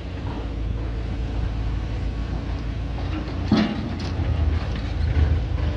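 Diesel engine of a tracked hydraulic excavator running with a steady low rumble, with one brief louder knock about three and a half seconds in.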